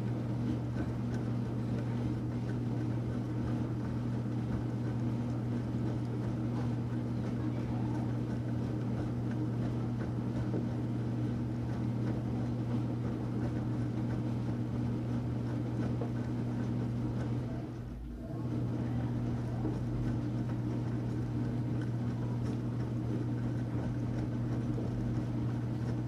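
Enxuta Luxo Soft washing machine running with a steady low motor hum, which drops briefly once, late on.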